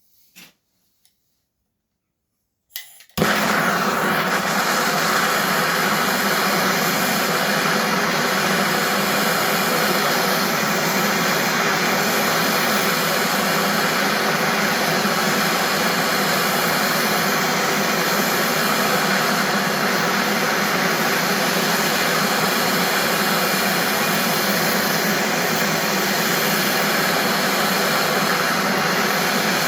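David Brown tractor engine running steadily at an even speed, cutting in abruptly about three seconds in after near silence and a couple of faint clicks.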